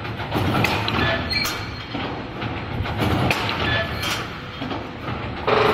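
Automatic wire mesh panel welding machine running: its row of resistance-welding heads clanks down on the wires again and again in an uneven rhythm, over a steady machine rumble. A louder, harsher noise cuts in suddenly near the end.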